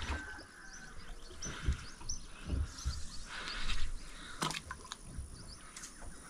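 Wild birds chirping: a series of short, high chirps that fall in pitch, with a few soft low thumps and one sharp click.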